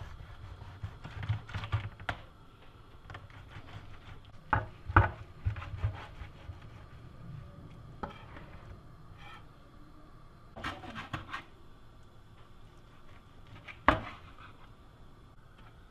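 Knife and fingers working on a metal baking tray while taking apart a whole roasted fish: a few sharp clicks and knocks of the blade against the tray, a cluster near the middle and a loud one near the end, with quieter rubbing and scraping between.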